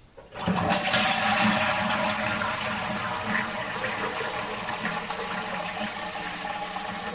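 Toilet flushing: a sudden rush of water about half a second in that slowly tails off.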